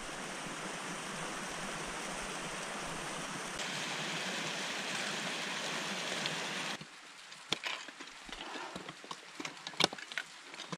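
A steady rushing noise, then sharp irregular clicks and scrapes of steel crampon points on granite about two-thirds in.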